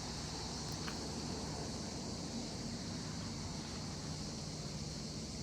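Steady high-pitched buzz of a cicada chorus over a faint low hum.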